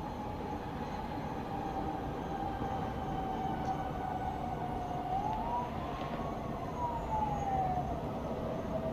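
Steady low rumble of distant town traffic, with a siren wailing far off: one thin tone sliding slowly down, rising once about five seconds in and falling away again.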